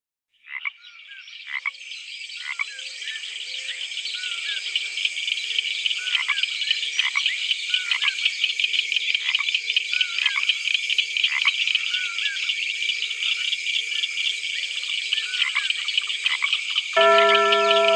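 Recorded nature ambience: a dense, steady chorus of rapidly pulsing frog-like chirps fades in at the start, with short falling whistled calls over it. Music with sustained tones comes in about a second before the end.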